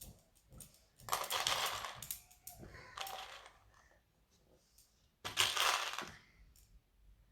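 Loose plastic LEGO Technic pieces rattling and clattering as a hand rummages through a pile of parts to find one piece. There are two loud bursts, one about a second in and another after five seconds, with a few small clicks in between.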